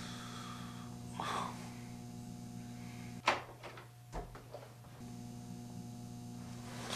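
A door's latch clicks about three seconds in, and a low thump follows about a second later as the door swings open, over a steady low electrical hum.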